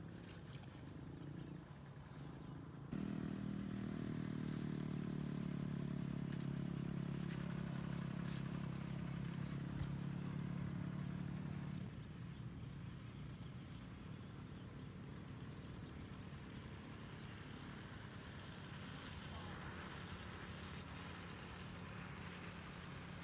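A steady engine hum, starting abruptly about three seconds in and cutting off about nine seconds later, with a high, fast insect trill above it. Before and after it there is only faint outdoor ambience.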